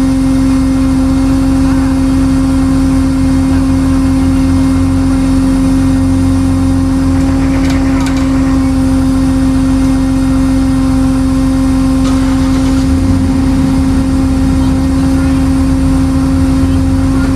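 A vehicle engine running steadily at a constant speed, with a strong unchanging hum over a low rumble.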